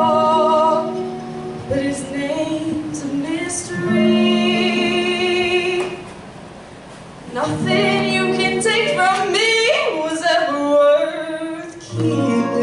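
A young woman singing into a handheld microphone, holding long sustained notes, with a short drop in level around six seconds in before she comes back in.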